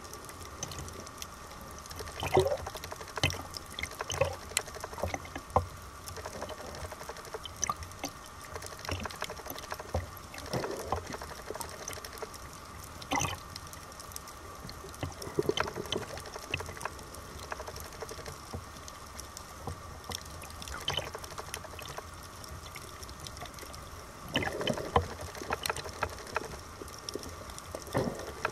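Underwater water sound: bubbling gurgles in short bursts every several seconds over a steady hiss with a faint steady tone and scattered small clicks.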